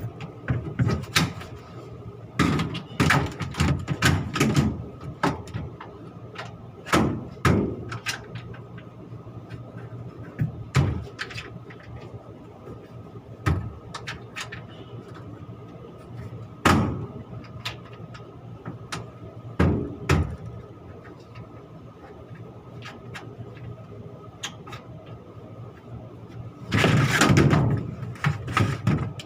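Irregular metal knocks, clanks and bangs from handling the air handling unit's panels and filters during reassembly, with a longer, louder rattle near the end, over a steady machinery hum.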